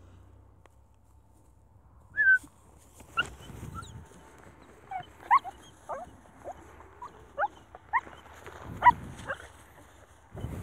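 Puppy whimpering in about a dozen short, high whines, some rising and some falling, with rustling in dry grass.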